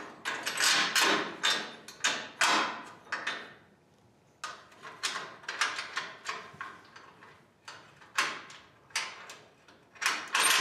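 Steel brackets and bolts being fitted by hand onto a Jeep's steel frame rail: repeated metal-on-metal clinks and scrapes in several short bursts, with a pause about four seconds in and another near seven seconds.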